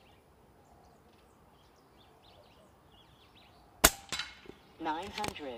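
AirMaks KRAiT PCP air rifle firing one shot about four seconds in, a sharp crack, followed a moment later by a fainter knock of the pellet striking the target. Birds chirp faintly before the shot.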